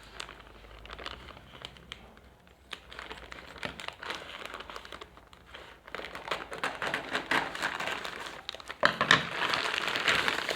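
Plastic and paper packaging crinkling and rustling as a parcel is opened by hand, with scattered small clicks and tearing; the crinkling grows louder in the second half.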